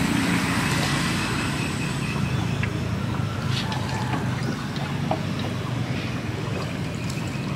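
Small boat's motor running steadily at low speed, a low hum, with a few faint clicks.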